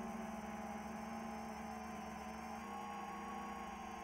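Electric motors and 10-inch three-blade propellers of an iFlight XL10 V5 FPV quadcopter (XING 2814 1100KV motors) humming at a steady throttle: several steady tones together, stepping slightly in pitch about two-thirds of the way in.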